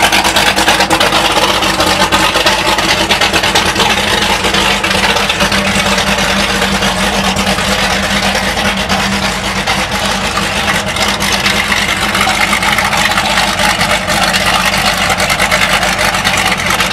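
Twin Mercury Racing 600SCI supercharged V8 engines with Stage 4 Whipple supercharger kits idling steadily, the exhaust pulsing evenly.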